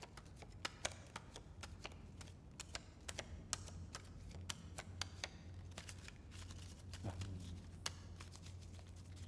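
Playing cards being dealt and laid down on a wooden floor: a run of soft, irregular flicks and taps over a low steady hum.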